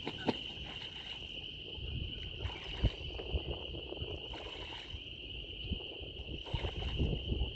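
Canada geese bathing: water splashing irregularly as they beat their wings and dunk, with a few sharper splashes. A steady high-pitched drone runs underneath.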